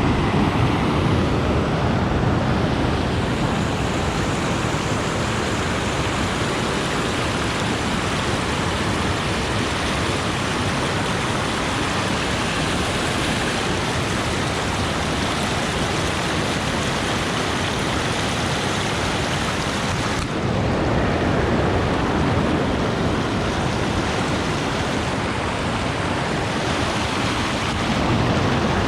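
Fast-flowing water rushing over rocks in a small river cascade, a steady loud rush. Its character shifts slightly about twenty seconds in.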